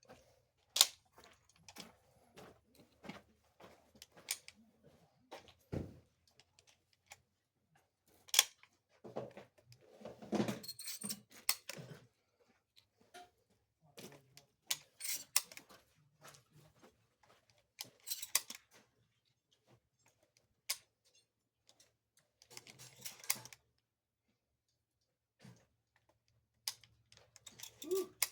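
Scattered clicks, knocks and short rattles of objects being handled close to the microphone, with quiet gaps between them.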